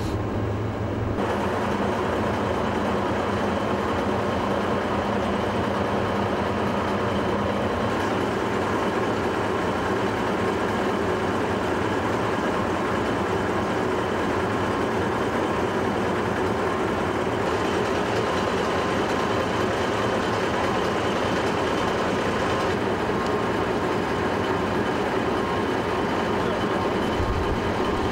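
Heavy military vehicle's diesel engine running steadily, heard up close as a dense, even rumble.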